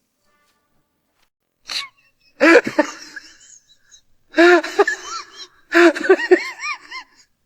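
A short, sharp sneeze-like burst, then three loud bouts of wavering vocal cries that rise and fall in pitch.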